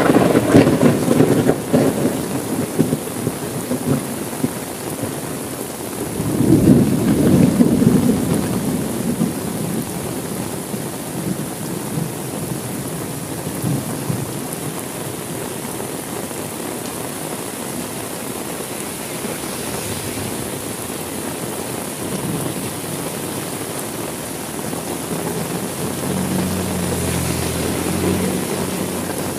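Steady heavy rain with thunder. A clap's rumble dies away over the first few seconds, and a second rumble of thunder swells and fades about six to nine seconds in.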